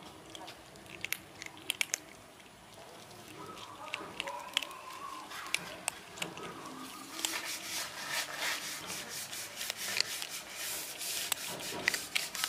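Kittens crunching dry cat kibble: sharp crunches and clicks of the pellets, scattered at first and then coming thick and louder about seven seconds in.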